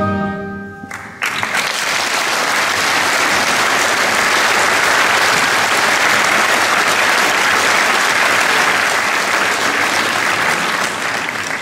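The accordion orchestra's last held chord dies away, and about a second in the audience breaks into loud, steady applause that begins to die down near the end.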